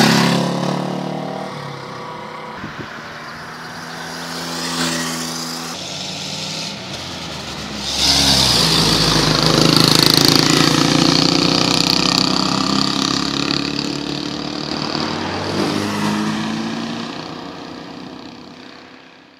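Old motorcycles and a vintage truck driving past one after another, their engines swelling as each goes by: loudest as the first motorcycle passes right at the start, then again from about eight seconds in as the truck and a second motorcycle pass. The sound fades out near the end.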